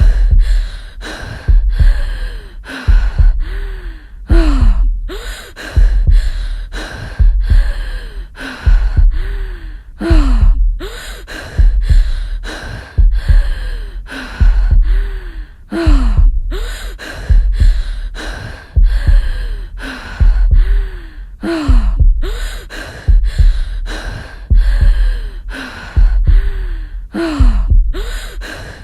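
Loud, rhythmic heavy breathing by a person, about one gasp a second, each gasp sliding down in pitch, with the breath blowing on the microphone as a low rumble.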